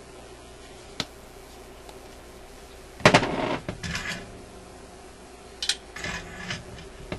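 Metal tools and parts being handled on a workbench: a sharp click about a second in, a loud rattling clatter about three seconds in, then another click and a shorter clatter near the end.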